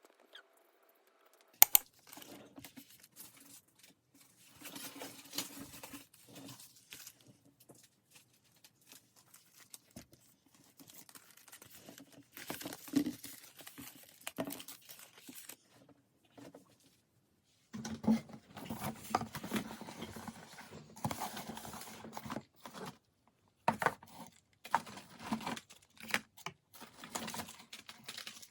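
Paper and plastic packaging being handled and torn open by hand: irregular crinkling, rustling and tearing with small sharp clicks, sparse at first and busier in the second half.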